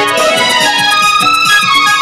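Santali band music: a keyboard melody of held notes over quick drum beats, about five or six strokes a second.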